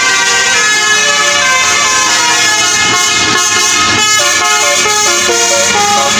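Telolet horn of a bus: a multi-tone musical horn playing a loud tune, several notes sounding together and stepping from pitch to pitch, changing more quickly in the second half.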